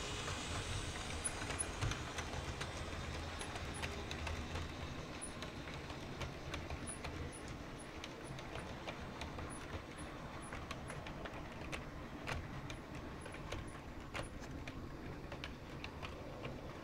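Hornby OO gauge Class 35 Hymek model locomotive and its parcels train running along the track: a steady rolling and motor hum with many irregular sharp clicks from the wheels on the rails. The sound grows fainter as the train moves away.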